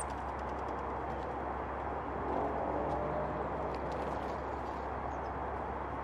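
Steady rumble of distant road traffic, swelling slightly about two seconds in, with a few faint high clicks over it.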